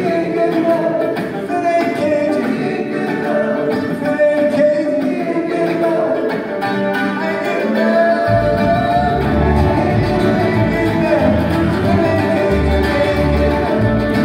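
Live acoustic string band playing a Cajun-style song on fiddle, mandolin, acoustic guitar and upright bass. Deep bass notes fill in about eight seconds in.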